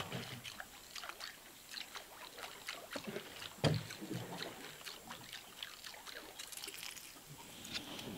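Small boat on calm water: light splashing and scattered sharp clicks and knocks, with one louder hollow thump about three and a half seconds in.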